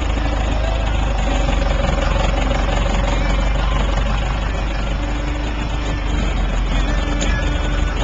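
Cummins 4BT four-cylinder diesel in a Jeep running steadily at low revs as the Jeep crawls slowly over rocks.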